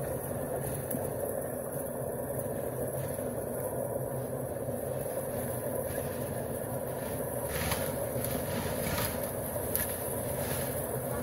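Portable concrete mixer running steadily, its small engine droning as the drum turns a batch of wet concrete. A few short scrapes and knocks of shovels and buckets come through in the second half.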